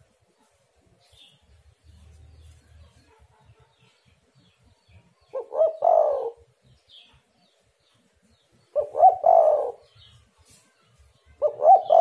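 Spotted dove cooing: three short phrases of several quick notes each, about three seconds apart, the first coming about five seconds in.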